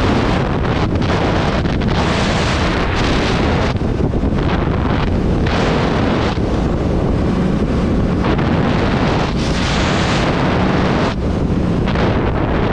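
Heavy wind rushing and buffeting over the microphone of a Kawasaki Z650 motorcycle cruising at highway speed, swelling and easing in gusts.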